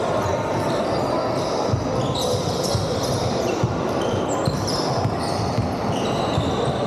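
Basketball game on a wooden sports-hall court: the ball bouncing as players dribble, with many short high squeaks of basketball shoes on the floor.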